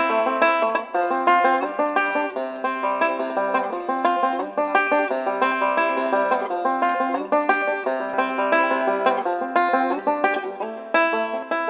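Resonator banjo played solo with fingerpicks: a quick, continuous stream of picked notes.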